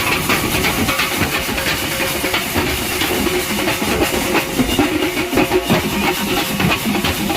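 Hand-made percussive sound: a fast, dense, unbroken stream of quick strikes over a hissing wash.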